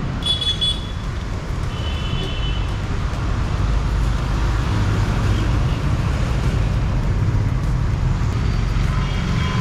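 Steady road traffic noise, growing louder about three to four seconds in, with two short high tones in the first few seconds.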